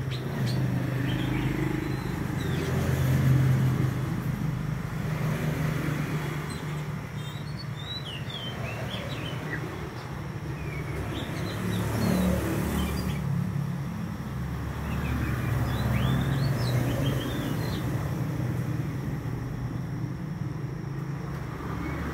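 A steady, low engine rumble that swells around three to four seconds in and again around sixteen seconds. Over it come scattered clusters of short, high chirps from an oriental magpie-robin.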